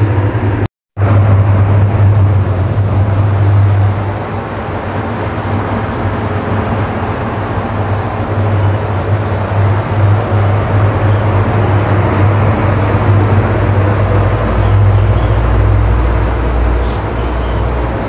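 Electric pedestal fan running, its airflow rushing over the microphone as a loud, steady noise with a low hum underneath. The sound cuts out for a split second about a second in, and a heavier low rumble builds near the end.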